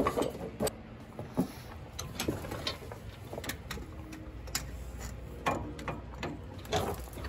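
Hydraulic hoses being pulled and pushed along the underside of a tractor, making scattered clicks, knocks and rustling at irregular intervals.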